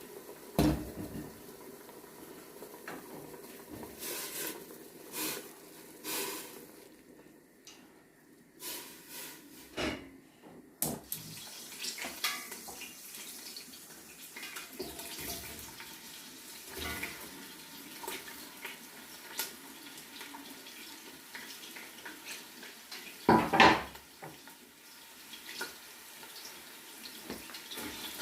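Kitchen clatter: pots and utensils knock and clink at irregular moments over a faint steady hiss, with one louder clatter near the end.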